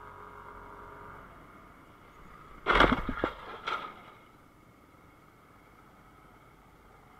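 Motor scooter crash: a sudden loud impact and clatter about three seconds in, as a scooter hits the asphalt, with a second smaller clatter just under a second later. Steady engine and traffic hum runs before it and fainter after.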